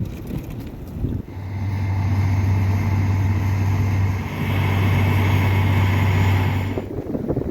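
A motor vehicle running close by on a snowy highway, giving a loud, steady low hum for about five seconds with a brief dip midway, then stopping abruptly. Gusty wind buffets the microphone around it.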